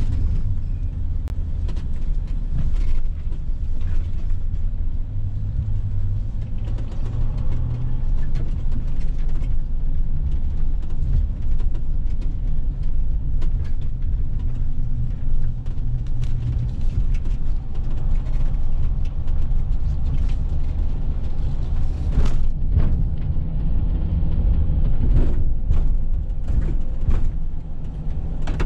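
Road noise heard inside a vehicle's cab while driving on a dirt road: a steady low rumble of engine and tyres, with short knocks and rattles from bumps, several of them near the end.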